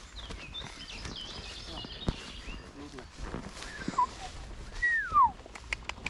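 Small birds chirping in short, high, curved notes, then a loud falling cry about five seconds in. A few sharp clicks come near the end.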